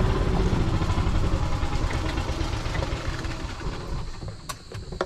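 Golf cart running as it is driven, its motor sound dying down steadily toward the end. A couple of sharp clicks near the end.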